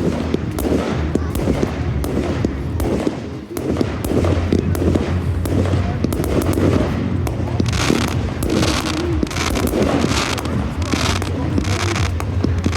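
Fireworks going off in quick succession: many sharp pops and crackles over a continuous low rumble, with thicker surges of crackling in the second half.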